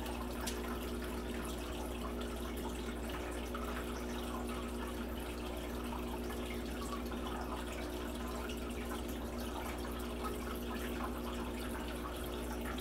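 Saltwater aquarium's water circulation: a steady trickle of moving water with faint dripping crackle over a constant low hum.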